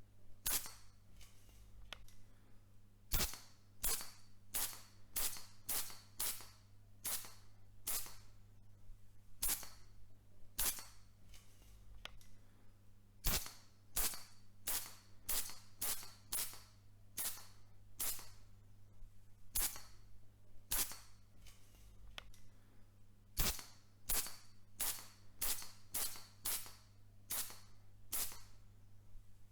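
A sprayer giving dozens of short, hissing spritzes, one after another at an uneven pace of roughly one or two a second, over a faint steady low hum.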